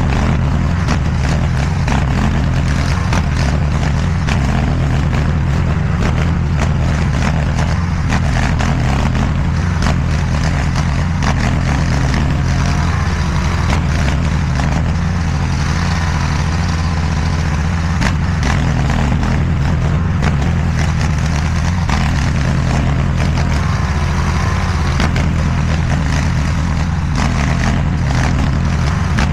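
Diggit SCL850 stand-behind mini skid steer's engine running at a steady speed throughout.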